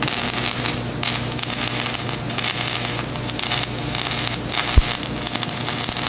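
Factory machinery noise: a steady low hum under dense crackling and clattering, with one sharp thump a little before the end.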